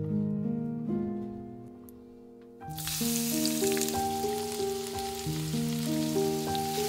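Sliced onions dropped into hot oil in a frying pan, sizzling from about three seconds in, over background music of plucked notes.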